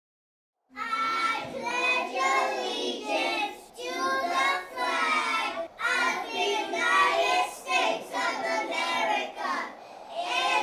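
A child singing, starting about a second in after silence.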